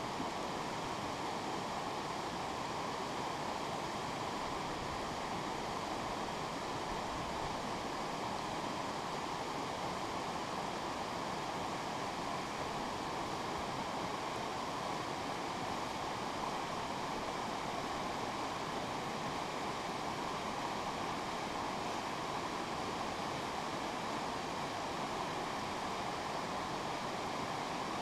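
Steady rushing of a fast-flowing woodland creek.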